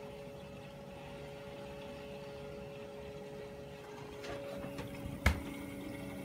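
Small plastic-bodied water pump running with a steady hum as it circulates water through the brewing system's plate chiller. About four seconds in, its hum shifts to a lower note, and a sharp click sounds a little after five seconds.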